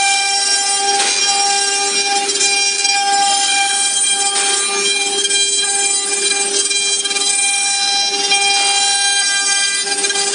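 CNC router spindle whining at a steady high pitch while the bit carves a 3D relief into a board, with rough cutting noise that swells briefly a few times.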